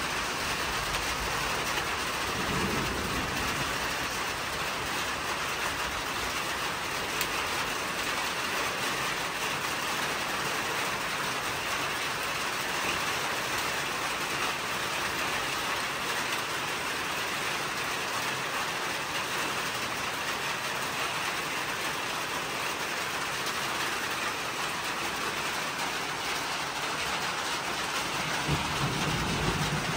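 Steady rain falling, a continuous even hiss with no letup.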